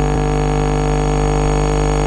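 Synthesized emergency alert alarm tone: a loud, steady, unchanging chord of buzzy tones over a strong low hum.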